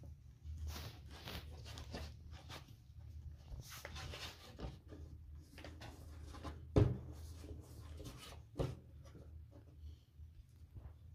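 Hands rolling and pressing a long log of dough on a wooden board: soft, irregular rubbing and patting, with a sharper knock about two-thirds of the way through and another a couple of seconds later, over a low steady hum.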